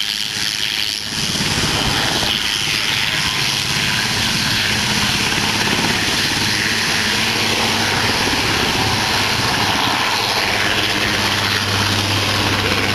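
A large twin-turbine military transport helicopter lifts off, banks and flies away low. Its rotor and turbine make steady, loud noise, with a low hum that grows stronger near the end.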